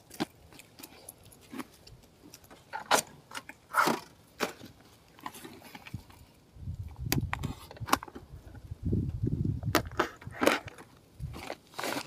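Wire-mesh cage trap wrapped in a plastic feed sack being picked up and handled: scattered sharp clicks and knocks of the wire and sack, with a low rumble of handling noise for a few seconds after the middle.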